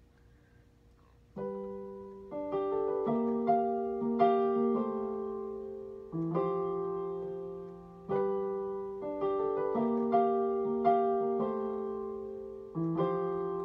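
Solo piano intro to a slow song: after about a second and a half of quiet, chords are struck every second or two, each ringing and fading before the next.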